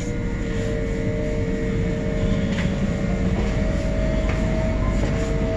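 Interior running noise of a moving Trenitalia double-deck regional train: a steady low rumble with a faint steady whine over it.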